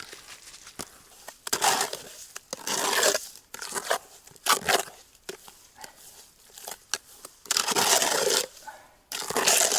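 Refractory fireplace mortar being stirred and scooped in a bucket: irregular gritty scraping and crunching strokes, each up to about a second long, with short pauses between them.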